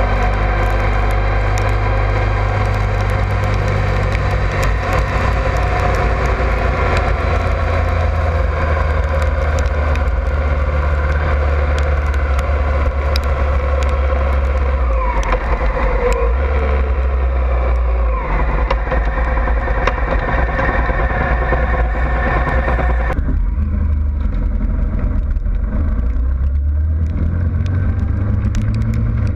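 Honda ST1100 Pan European's V4 engine running steadily at cruising speed, with road and wind noise. About three quarters of the way through, the sound abruptly turns duller.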